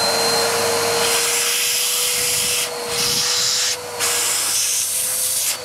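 Bissell Power Force Helix upright vacuum cleaner's motor running with a steady whine and a loud rush of air pulled in at the open hose inlet. The air rush dips briefly twice and drops away near the end. It has good suction.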